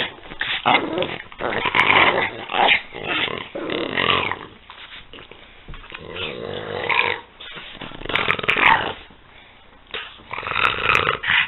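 A pug and a French bulldog play-fighting, growling at each other in irregular bursts with short pauses.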